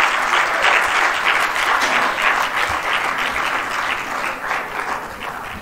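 Audience applauding: dense, many-handed clapping that fades away near the end.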